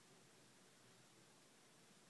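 Near silence: faint, even room tone and hiss.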